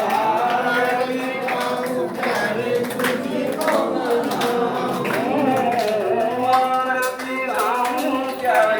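Devotional aarti hymn being sung, with a voice holding and bending long notes over a steady percussion beat.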